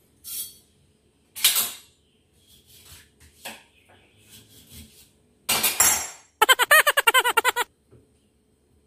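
Kitchen handling clatter as a lemon is cut on a plastic cutting board and a blender cup and a can are moved about: scattered knocks and clinks, a loud clatter about five and a half seconds in, then a rapid run of clicks, about a dozen a second, for about a second.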